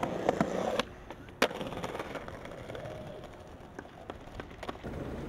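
Skateboard wheels rolling over brick pavers, a steady rumble with small ticks at the joints. There is one sharp click about a second and a half in.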